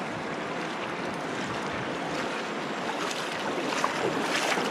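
Shallow river current flowing past, a steady rush of water.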